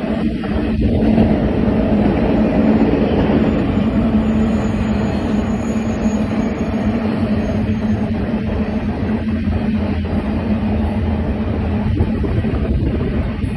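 Intermodal freight train rolling past at speed, its trailer-carrying flatcars making a steady rumble of steel wheels on rail with a constant low hum.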